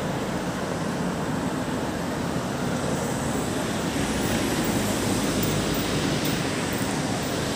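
Road traffic noise: cars passing at speed along the road, a steady rush of tyre and engine noise that swells slightly about halfway through.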